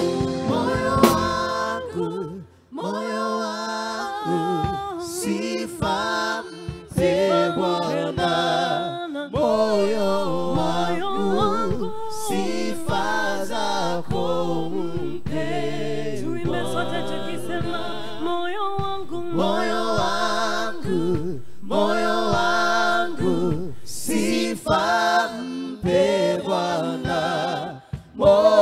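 Live gospel worship singing: a woman leads the song with a group of backing singers, the voices carrying it in phrases with short breaths between.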